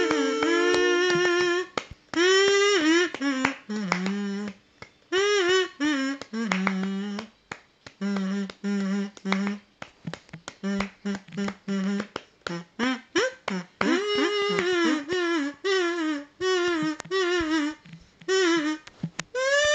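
Kazoo playing a theme melody, a buzzy hummed tone sliding between notes. A few kazoo parts overlap at the start, a run of short, clipped notes comes in the middle, and it climbs to a held high note near the end.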